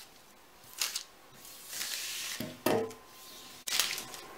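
Scissors snipping through thin pattern paper and paper rustling as the cut pieces are handled, with a sharp clack near the end as the scissors are set down on the table.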